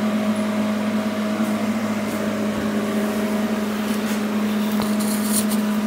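Steady machine hum from an idling CNC plasma cutting setup as the ArcDroid torch moves into position before piercing, with a few faint clicks in the second half; the cutting arc has not yet started.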